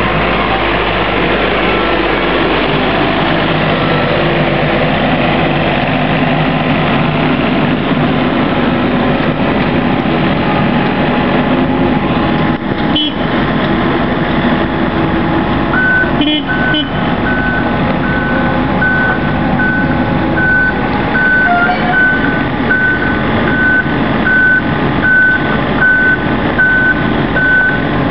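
Steady engine noise throughout. About halfway through, a forklift's reversing alarm starts beeping, roughly once a second, as it backs up inside the semi trailer.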